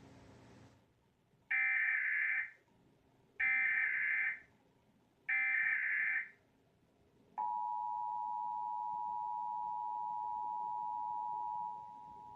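Emergency Alert System SAME header: three one-second bursts of buzzy digital data tones about two seconds apart, marking a required monthly test. About seven seconds in, the EAS two-tone attention signal begins, a steady dual-tone beep that drops in level near the end.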